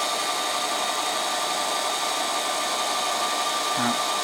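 Ceiling fan running at its highest speed: a steady whirring hiss with a faint steady whine, plus a brief low sound near the end.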